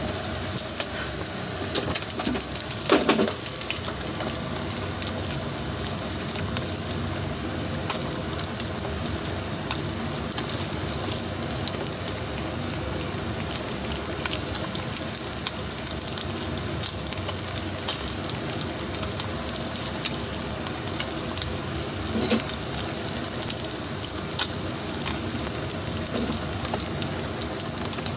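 Black sea bream heads and bones (ara) deep-frying in a pan of hot oil: a steady sizzle with constant crackling pops.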